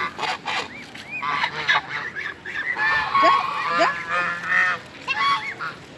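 A group of pet ducks calling, short overlapping honking calls from several birds, busiest through the middle.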